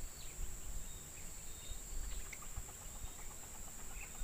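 Outdoor insect chorus: a steady, unbroken high-pitched drone of insects, with short scattered bird chirps over it and a low rumble underneath.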